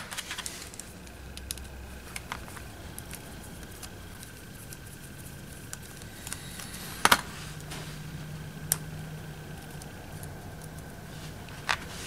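Small screwdriver and the metal shell of an XLR connector being handled while its set screw is loosened: scattered light metallic clicks and taps, with a sharper click about seven seconds in and a couple more later, over a faint steady background.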